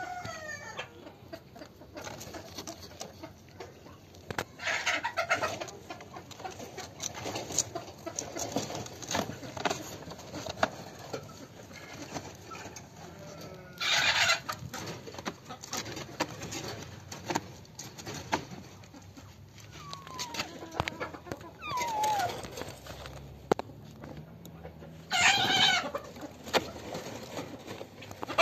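Short animal calls every few seconds, some sliding in pitch, the loudest about halfway through and again near the end, over scraping and rustling from a hand working among boards.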